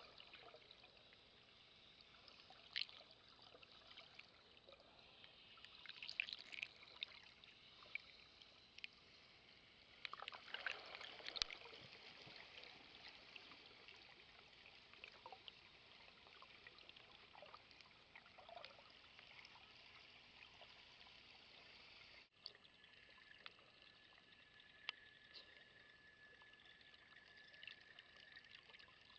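Faint underwater ambience: a soft hiss with scattered clicks and crackles, busier around ten to twelve seconds in. After a brief dropout past the midpoint, a faint steady whine runs under it.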